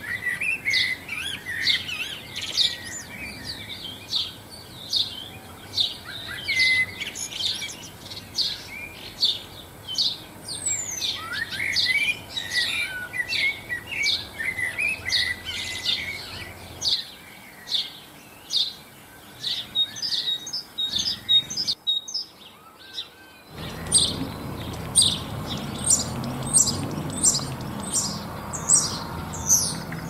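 Small garden songbirds chirping and twittering: many short, high, falling chirps, with busier twittering through the first half and a steady run of sharp chirps about two a second near the end.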